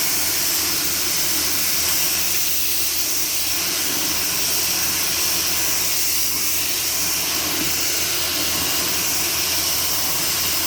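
Pressure washer running: the motor's steady hum under the loud, even hiss of the high-pressure water spray blasting mildew off the truck's paint.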